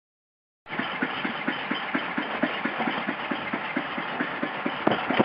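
Volvo Penta AQ205A marine engine idling with an even, steady beat of about five pulses a second. The sound cuts in abruptly under a second in.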